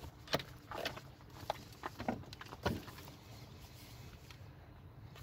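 A hand handling a plastic engine cover: about five light clicks and knocks in the first three seconds, then only a faint low rumble.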